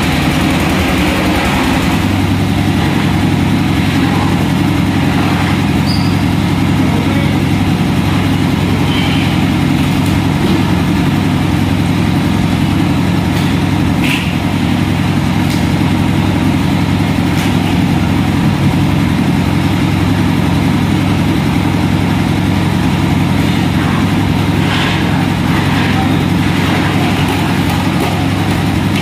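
An engine idling steadily, a continuous low hum that keeps an even level, with a few faint short knocks over it.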